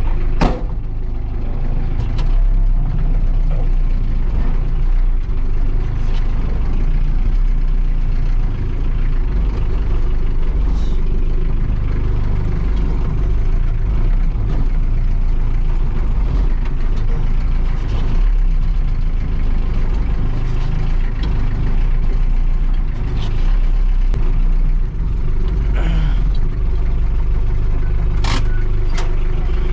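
Tractor engine running steadily, with a few sharp knocks over it.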